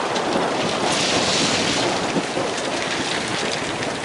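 Graupel (snow pellets) falling steadily, a dense hiss of tiny ticks as the pellets strike the ground and nearby surfaces. A thunder rumble dies away in the first second.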